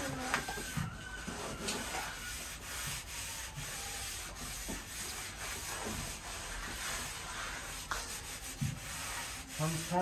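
Plastering trowels scraping and spreading wet plaster across a wall: an uneven run of rasping strokes with a few short knocks.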